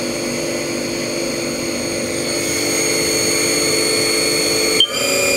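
Haas TM-3 CNC mill spindle running at about 3000 rpm, a steady whine of several tones. Near the end the tone shifts suddenly upward as the spindle is sped up towards 3500 rpm.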